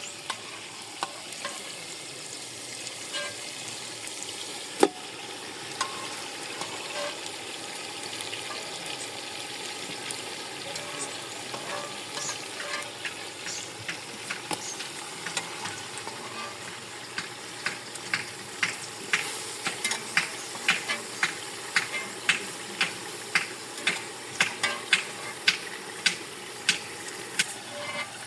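Food sizzling as it fries in a pot and is stirred with a spoon. There is one sharp knock about five seconds in, and in the second half the spoon knocks against the pot about twice a second.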